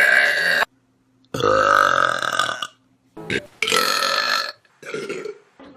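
A string of loud human burps, one after another. There are three long belches of about a second each and a shorter one, with short silences between them.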